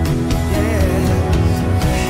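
Contemporary worship song playing: a full band with drums and a sung melody.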